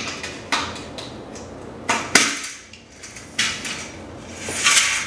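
Vertical blind head rail being snapped out of its mounting brackets: a series of sharp plastic-and-metal clicks and knocks, the loudest just after two seconds, with a scraping rustle of the rail near the end.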